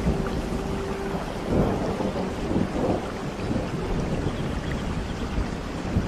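Steady heavy rain with a roll of thunder rumbling through it from about a second and a half in.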